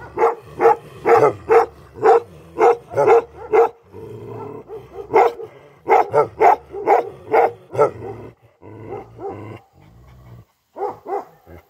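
Tibetan Mastiff barking: runs of loud, repeated barks at about two a second, broken by two short pauses, with a last pair of barks near the end.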